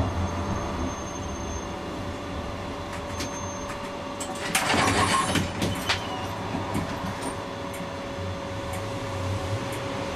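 Comeng A-class tram running, heard from on board: a steady low hum under a thin steady whine. About four and a half seconds in comes a loud burst of hiss with a few sharp clicks, lasting about a second.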